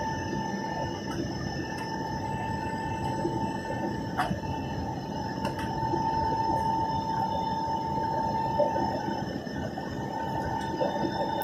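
Jet airliner cabin noise in the climb after takeoff: a steady rush of engines and airflow with a steady high engine whine, which grows louder about six seconds in. A faint click about four seconds in.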